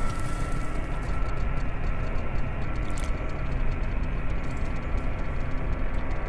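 A steady low rumbling drone with a faint high held tone and a scatter of quick, faint ticks.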